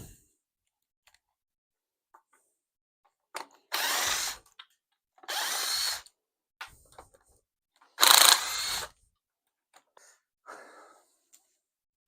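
Handheld power drill/driver run in three short bursts of under a second each, undoing the intake nuts on a V8 engine, with a few small clicks of metal between the bursts.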